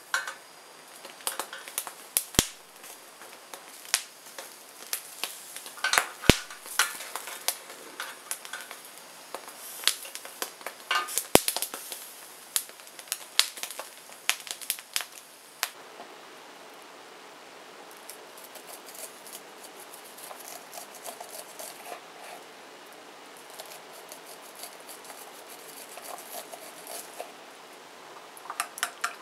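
Metal tongs clicking and knocking against the pan supports of a portable gas stove as an ear of corn is turned over the flame, many sharp clicks in the first half, then a quieter stretch of light ticks. Near the end a spoon clinks as it stirs in a ceramic bowl.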